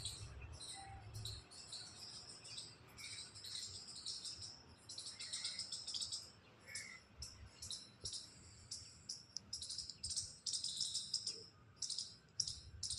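Birds chirping: many short, high chirps in quick, irregular runs.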